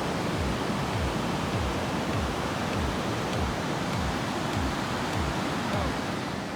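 Steady rush of ocean surf and wind, with gusts buffeting the microphone in low rumbles.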